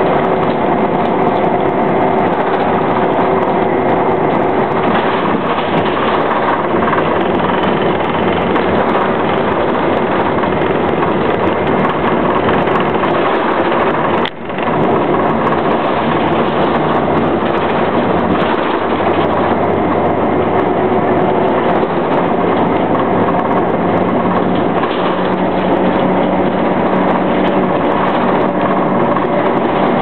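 City bus running along a road, heard from inside the cabin: a steady mix of engine hum and road noise. The sound drops out briefly for a moment about halfway through.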